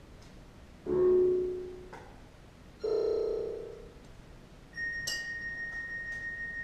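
Sound installation tones: two struck, pitched notes about two seconds apart, each ringing away over about a second, the second a little higher. Then a steady high pure tone starts about five seconds in and holds.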